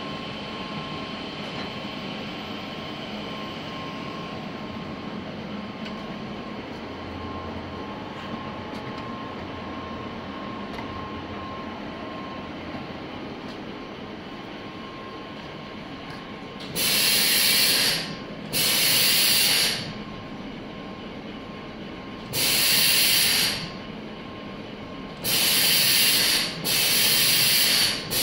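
Steady hum of an avocado packing line's conveyor machinery. About halfway through, the pneumatic gripper of a Greefa SmartPackr packing robot starts hissing with air in bursts of about a second each, five times, some spaced a few seconds apart and some in quick pairs.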